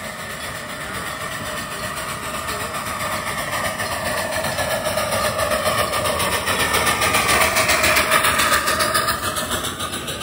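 Miniature ride-on train approaching and passing close by: the running noise of the locomotive and cars, with a rapid even beat, grows louder to a peak about eight seconds in, then starts to fade.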